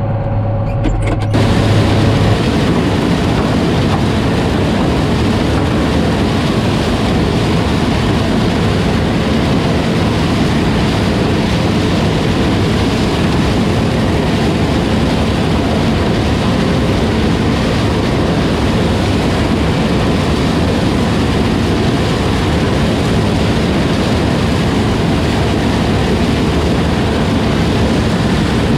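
A farm vehicle driving down the road: steady engine and road noise that jumps louder about a second in and then holds even.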